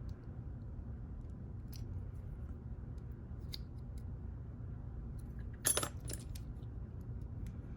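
Small metal lock parts and tools being handled: scattered light clicks, with one louder metallic clink about three quarters of the way through, over a steady low hum.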